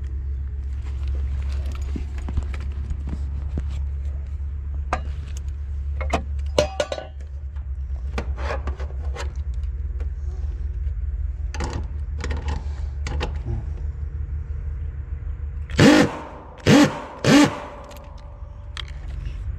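Small metal clicks and clinks from handling a capacitor and its mounting hardware, over a steady low hum. Near the end, a Makita cordless impact driver runs in three short bursts, driving a self-tapping screw into the condenser unit's sheet-metal panel.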